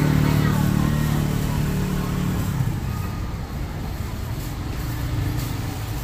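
A road vehicle's engine running close by, fading away about two and a half seconds in, with steady street traffic noise behind it.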